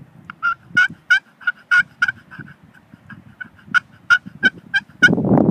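A Primos Bamboozled glass-over-bamboo pot turkey call played with a striker while its glass surface is wet from a waterproofing test: a run of short, high clucks and yelps at an uneven pace. About five seconds in, a sudden loud rush of noise cuts in.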